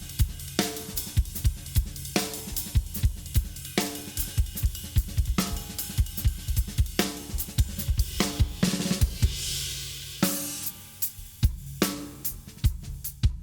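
Acoustic drum kit played at a fast tempo: rapid bass-drum and snare strokes with hi-hat and cymbals, ringing drum tones every second or so, and a cymbal wash around nine seconds in.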